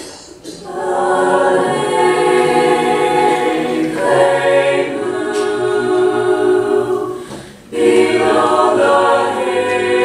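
Mixed high school choir singing a cappella in slow, sustained chords. The voices come in right at the start, swelling to full within about a second, and break off briefly for a breath between phrases about three quarters of the way through before going on.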